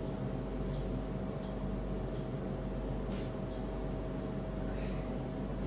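Steady mechanical hum with a constant whine, like a fan or air-conditioning unit running, with a few faint clicks and taps of hose fittings being handled.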